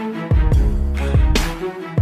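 Background music with a beat: deep bass hits that drop in pitch, cymbal-like washes, and sustained pitched tones over them.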